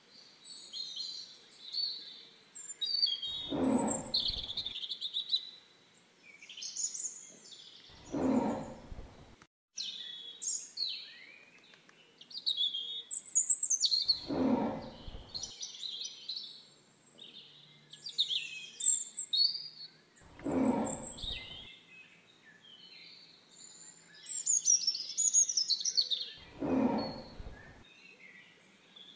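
Tiger calling: five low roars of about a second and a half each, roughly six seconds apart, over continual chirping of small birds.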